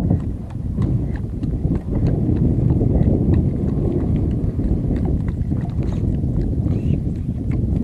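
Steady wind rumble on the microphone over open water, with scattered light clicks and knocks.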